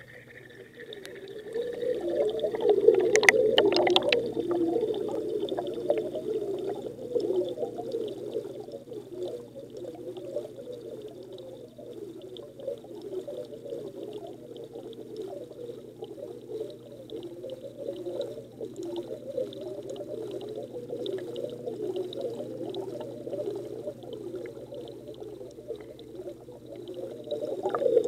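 Aquarium water bubbling and gurgling, heard underwater through a submerged action camera's waterproof housing, so it sounds dull and muffled; the air bubbles stream continuously through the tank. A few sharp knocks come about three to four seconds in, where it is loudest.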